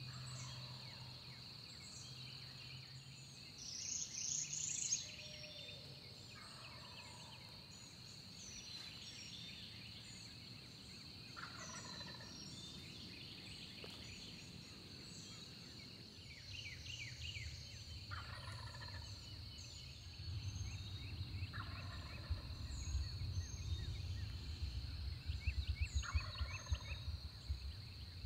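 Eastern wild turkey gobblers gobbling from the roost at dawn, about seven rattling gobbles spaced a few seconds apart, with small songbirds chirping throughout. A low rumble builds in the last third.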